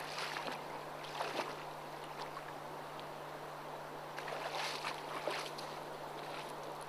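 River water running and lapping against a pebble bank, with a few short, louder splashes near the start, a little after a second in, and again around four to five seconds in. A steady low hum runs underneath.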